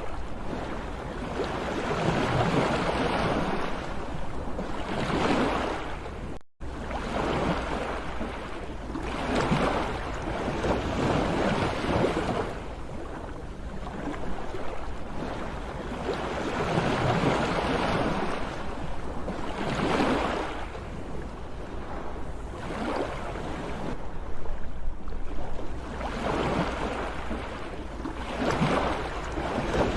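Sea waves breaking and washing up, swelling and falling back every few seconds. The sound cuts out for a split second about six seconds in.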